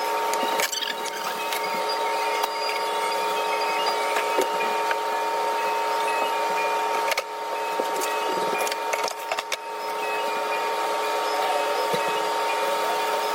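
A small machine running with a steady whine, with scattered clicks and knocks.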